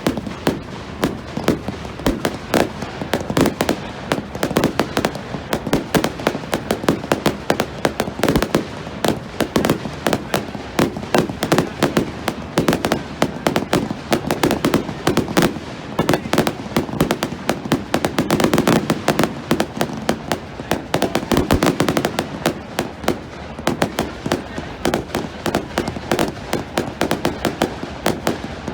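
Fireworks going off in a dense, continuous barrage of bangs and crackling pops, several a second with no let-up.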